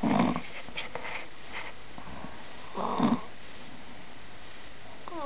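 A woman snoring in her sleep: two short snores about three seconds apart.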